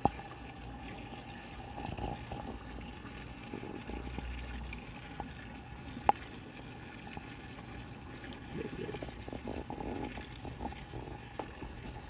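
Pond water moving in a steady, low wash, with a few sharp clicks, the loudest about six seconds in.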